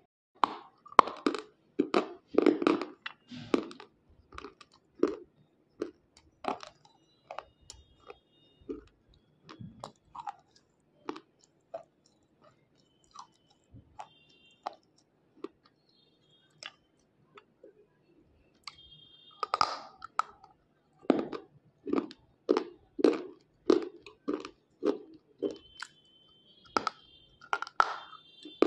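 White unshaped slate pencil being bitten and chewed: sharp, brittle crunches of the chalky slate between the teeth. The crunches come quickly at first, thin out to a lull in the middle, then come quickly again in the second half.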